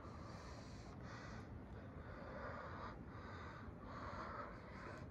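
A person breathing heavily, close to the microphone: faint, even puffs about once a second.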